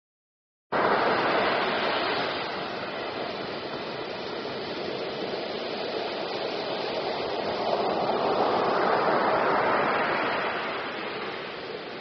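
Ocean surf: waves breaking and washing up a beach, a steady rushing that starts abruptly about a second in, then eases and swells again with the waves.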